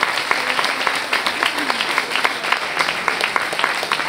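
Theatre audience applauding, many hands clapping in a dense, steady patter.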